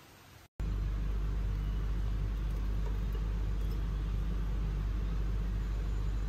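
Steady low rumble of a running vehicle, starting suddenly about half a second in after a brief dropout.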